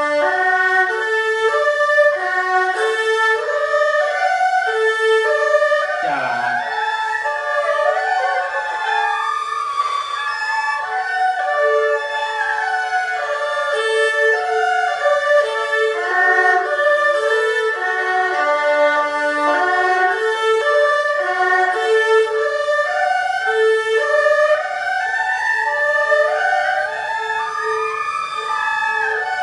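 Erhu played solo, bowing a broken-chord sequence exercise: quick arpeggio figures step up and down in repeating patterns, returning again and again to the same low note.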